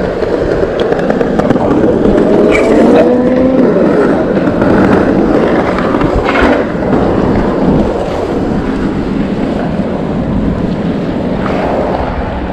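Super73 Z1 e-bike in motion: steady rushing noise of wind and tyres on the road, with the 500-watt motor's whine rising in pitch about two to three seconds in. A couple of sharp knocks, the loudest about six seconds in.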